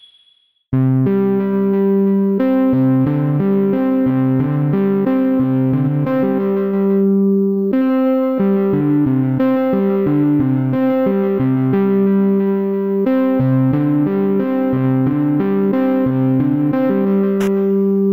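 Instrumental music of repeating keyboard notes, starting about a second in after a brief silence.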